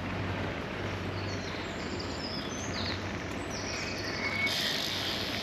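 Steady wind and rolling noise from riding a Brompton folding bicycle, with small birds chirping over it. A brighter hiss comes in near the end.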